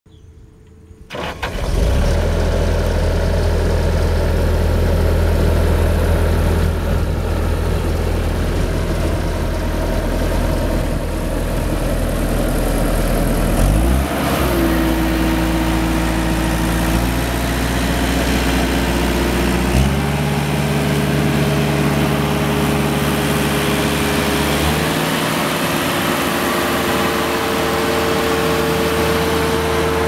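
Bobcat 873G skid steer loader's turbocharged diesel engine starting about a second in and then running steadily. Its engine speed rises in steps: a short upward glide about halfway through, and two further steps up at about two-thirds and near the end.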